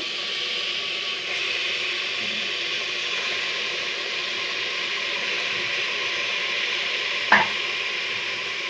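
Chicken pieces sizzling in hot oil and ghee with fried onion and spices in a pressure cooker, a steady frying hiss. A single sharp knock about seven seconds in.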